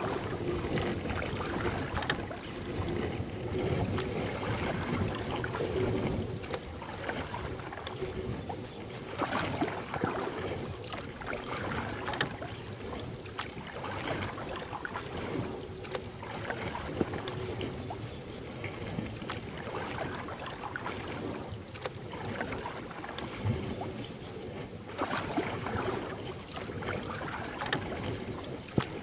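Paddling on a river: paddle strokes in the water coming in swells every few seconds, with wind on the microphone and a few sharp knocks.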